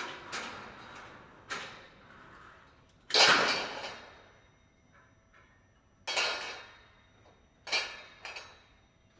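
A series of about six sharp hits or knocks, each dying away over a second or so; the loudest comes about three seconds in.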